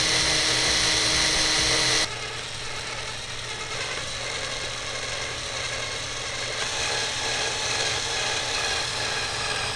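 Cordless drill (DeWalt DCD777) driving a twist bit into the aluminium mast wall. For about two seconds the motor runs loud and steady with a high whine, then the sound drops suddenly to a quieter, rougher cutting sound.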